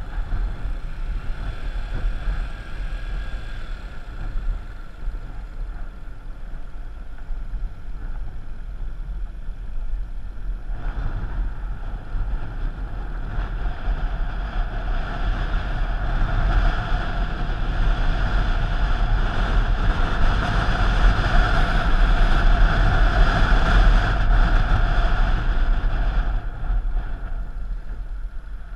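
A vehicle's engine running while under way, with wind buffeting the microphone. The noise grows louder from about a third of the way in and eases off near the end.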